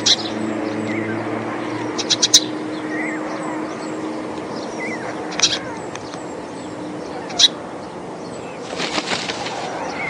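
Steady road-traffic noise with a low drone that fades out about seven seconds in. Over it come a few short sharp clicks, in small clusters, and faint small-bird chirps.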